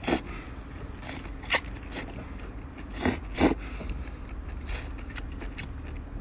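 Close-up slurping and chewing of dressed wakame seaweed: strips sucked in off chopsticks in several short, sharp slurps, the loudest two about three seconds in, with wet chewing between them.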